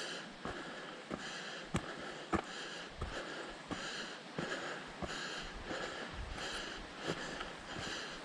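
A hiker's footsteps on a dirt trail, a short crunch repeating at walking pace with sharp clicks between, together with his breathing.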